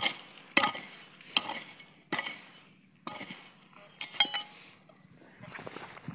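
A short-handled digging tool striking and scraping dry, stony earth, about six strokes roughly a second apart, as a metal detector target is dug out.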